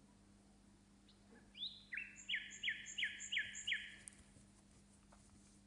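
A bird singing: a quick run of about six descending whistled notes lasting about two seconds.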